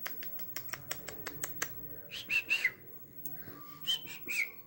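Cockatiel giving short whistled chirps that curl down in pitch, two about two seconds in and two more near the end. They follow a quick run of light clicks at about eight a second.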